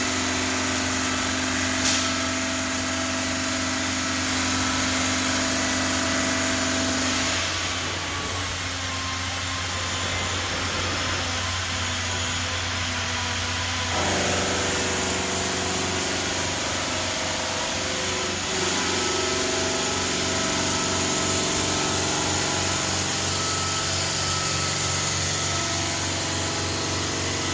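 Denver five-axis CNC bridge saw cutting 20 mm black granite, running as a steady machine drone. There is a sharp click about two seconds in, and the drone changes tone a few times, about a quarter and about half way through and again a little later.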